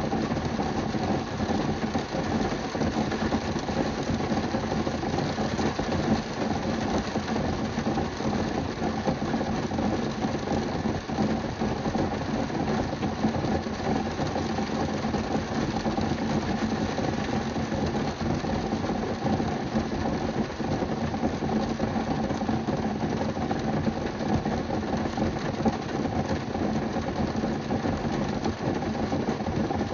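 Heavy rain drumming on a car's roof and windows, heard from inside the car: a dense, steady patter of drops with no let-up.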